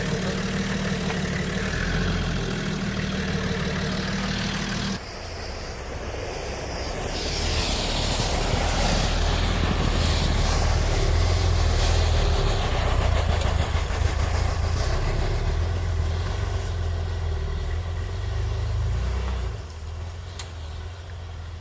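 Vehicle engine running steadily, a low drone that changes abruptly about five seconds in and again near the end, and is loudest through the middle.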